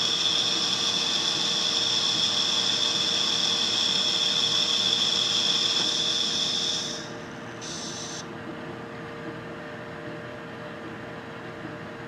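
A metal lathe boring ductile iron with a carbide boring bar: the cut gives a steady high-pitched whine that stops about seven seconds in and comes back briefly just after. After that the lathe spindle keeps running with a lower, steady hum.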